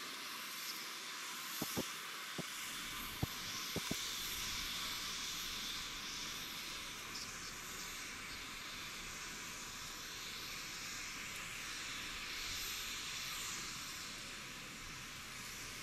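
Steady hissing rush of a C-130J Super Hercules' four turboprops heard from far off, with a few sharp clicks in the first four seconds.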